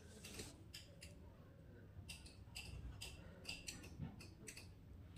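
Faint, irregular light clicks, about two or three a second, over near-silent room tone.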